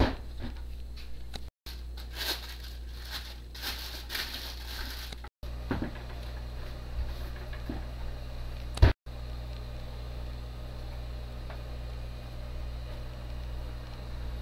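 Bread dough being handled and rolled out with a wooden rolling pin on a floured steel worktop: soft patting and rustling, and a few knocks on the table, the loudest a sharp knock about nine seconds in. A steady low hum lies underneath, and the sound cuts out briefly three times.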